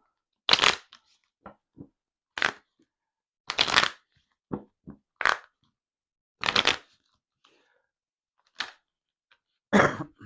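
A deck of tarot cards shuffled and handled by hand: seven short brushing bursts about every one to two seconds, with small taps and ticks between them.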